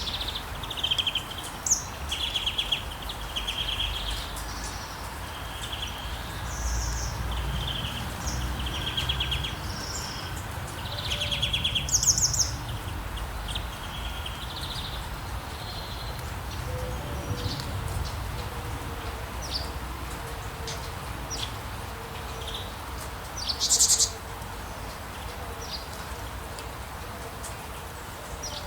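Several songbirds chirping and trilling, with short calls repeated about once a second in the first half, over a steady hiss of light rain. Two brief, higher trills, about halfway and near the end, are the loudest sounds.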